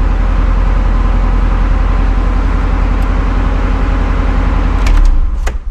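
Mazda Miata NA's four-cylinder engine idling steadily, then switched off near the end.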